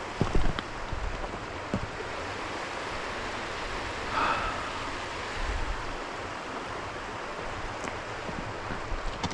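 Steady rushing of a stream, with a few low knocks of footsteps on rocks in the first second and a short, higher sound about four seconds in.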